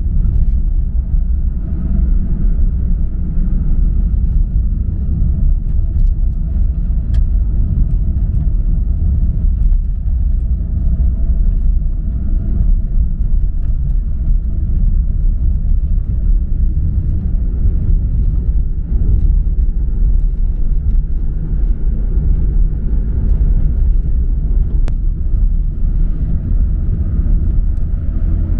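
Small car with a 900 cc petrol engine driving along: a steady, deep engine and road rumble that holds even without a break.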